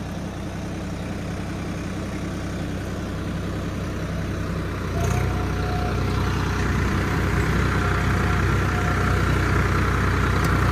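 Swaraj 855 4x4 tractor's three-cylinder diesel engine running steadily while pulling a cultivator. About five seconds in there is a click, then the engine's low note gets louder and a steady whine comes in as the implement levers go down and the engine takes more load.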